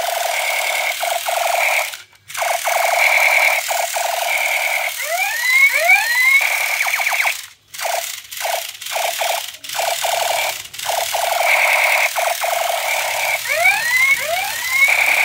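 Battery-powered light-up toy machine gun playing its electronic firing sound through a small speaker: a rapid buzzing rattle, broken twice by bursts of rising zapping chirps. The sound cuts out briefly several times, mostly near the middle, as the trigger is let go and pressed again.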